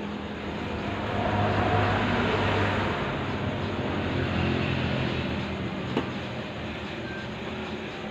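A motor engine's steady low hum, swelling louder from about a second in and again around four seconds in, with a single sharp click about six seconds in.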